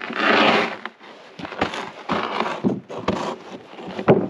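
A wooden floor panel scraping and sliding over packed snow, with footsteps crunching in the snow, in several noisy bursts, the loudest in the first second. A sharp knock just before the end.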